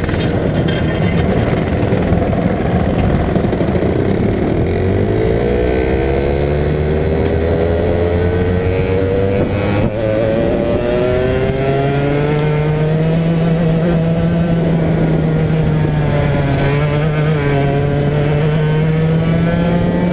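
Racing kart engine heard onboard, pulling away and accelerating with its pitch climbing over several seconds. It eases off briefly about halfway and again a few seconds before the end, then climbs again.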